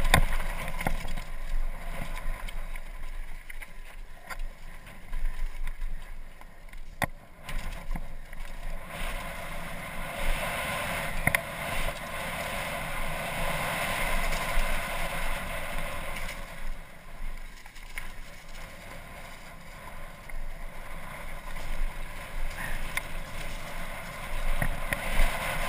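Mountain bike descending a dirt trail: wind rushing over a helmet-mounted camera's microphone, with tyre noise on dirt and scattered knocks and rattles from the bike over bumps.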